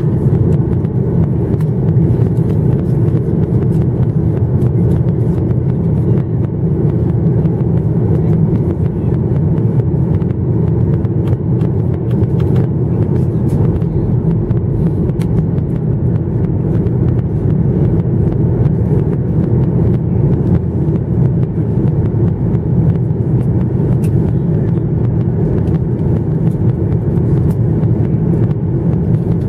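Steady cabin noise inside a descending Boeing 737-900ER: a deep, unchanging drone of its CFM56-7B turbofan engines and the air rushing past the fuselage.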